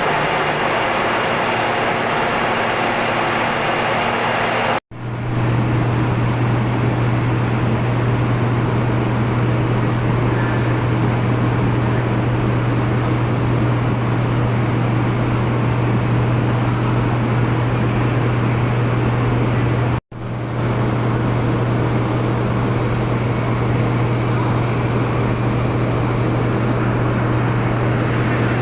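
Steady, loud industrial machinery noise with a strong low hum throughout, broken by two abrupt cuts about 5 and 20 seconds in.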